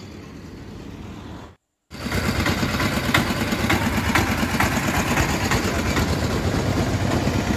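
Street traffic: engines of nearby vehicles running, a loud unbroken din from about two seconds in after a brief dropout, with a quieter steady hum before it.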